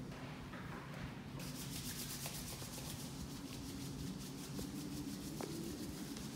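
Rapid, even rubbing of hands over clothing during a massage, several strokes a second, starting about a second and a half in, over a steady low room hum.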